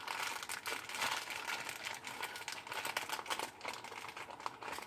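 Plastic packaging crinkling and rustling in a run of fine crackles as hands work at opening it.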